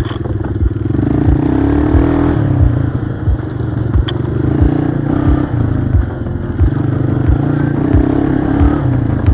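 ATV engine running along a trail, its pitch rising and falling a few times with the throttle, with some clatter and scraping. Under it, background music with a steady low beat about every two-thirds of a second.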